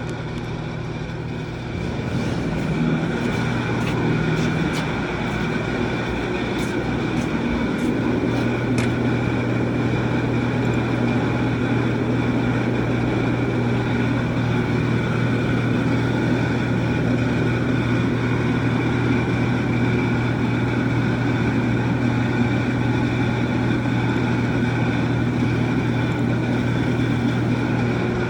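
Pickup truck engine running steadily with an even hum, growing louder about two seconds in.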